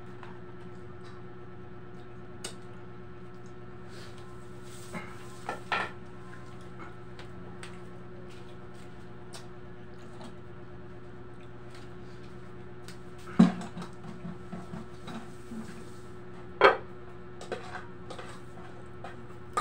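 Dishes and a metal cooking pot clinking and clattering during a meal, with two loud sharp clanks past the middle, about three seconds apart. An electric fan hums steadily underneath.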